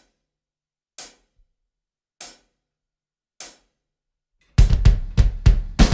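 Four evenly spaced count-in clicks, about a second apart, then about four and a half seconds in a drum kit comes in loud: a slow double bass drum pattern on twin pedals, fast low kicks under repeated cymbal strokes.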